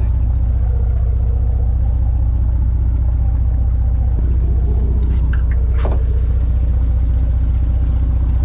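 Boat engine idling with a steady low rumble and an even pulse. A few brief sharp sounds stand out about five to six seconds in.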